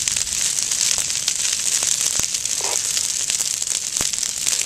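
Prescribed fire burning through dry grass and brush, crackling: a steady hiss full of quick pops and snaps. Louder snaps come about two seconds in and again near the end.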